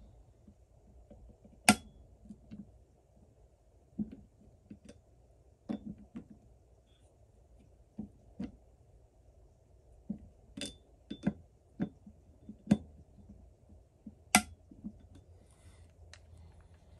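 Scattered light clicks and clinks of small metal pistol parts and hand tools being handled and set down on a work mat. The sharpest come about two seconds in and in a cluster over the second half.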